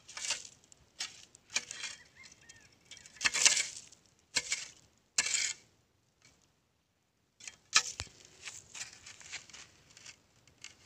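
A stick scraping and poking through dry leaves and soil: irregular crunching scrapes about once a second, with a silent pause in the middle followed by a couple of sharp clicks.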